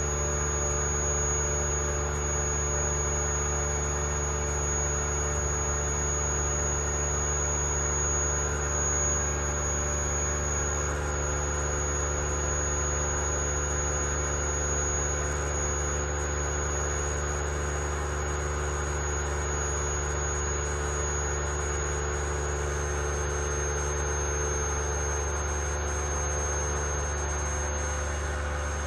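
Vacuum pump running steadily, evacuating the sealed chamber of a sigma mixer as the vacuum climbs. It gives an even hum of several low tones with a thin high-pitched whine over it.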